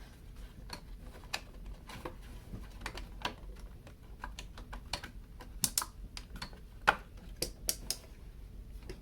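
Irregular small clicks and taps of hard plastic and metal parts being handled and worked loose as a string trimmer's gear housing is taken apart, with a few sharper clicks past the middle.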